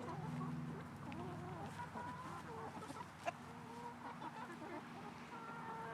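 Chickens clucking, many short scattered calls from several birds, with one sharp click about three seconds in.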